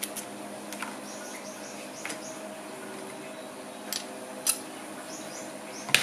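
Small metal clicks and taps as parts of a Ryobi Zauber 2000 spinning reel and tools are handled and set down on a plastic tray during disassembly. There are about six separate clicks, the sharpest near the end, over a steady low hum.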